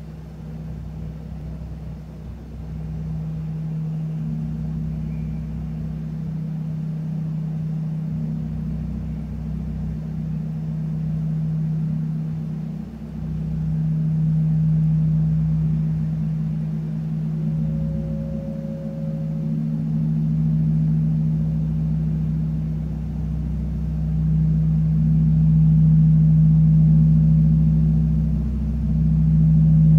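Large gong played softly with mallets: a low, steady hum that builds gradually louder, with a few brief dips.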